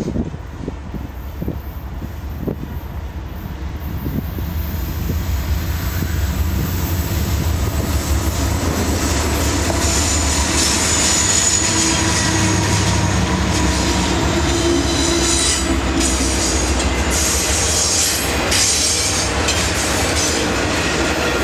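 Norfolk Southern diesel-hauled intermodal freight train passing close by. The locomotives' engine rumble grows louder as they approach and go past, then double-stack container cars roll by with a steady rumble and clatter. High-pitched wheel squeal rises from the curve about halfway through.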